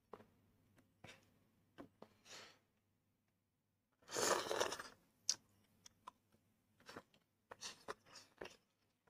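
A person eating a tandoori chicken leg: a loud bite and tear into the roasted meat about four seconds in, then chewing with scattered short mouth clicks.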